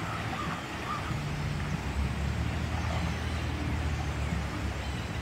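Wind buffeting the microphone in low, uneven rumbles over a steady outdoor hiss.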